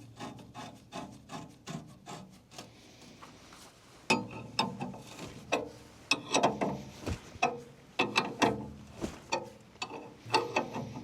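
Ratchet wrench working in repeated short rasping strokes, a few a second, tightening the bolts that hold steel edge tamers onto a tractor loader bucket. The strokes get louder about four seconds in.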